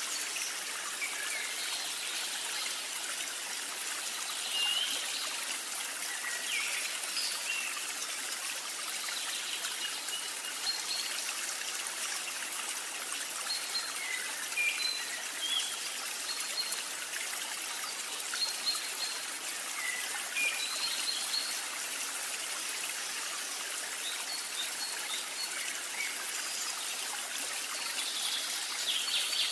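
Steady rush of flowing water, like a stream, with short bird chirps scattered throughout.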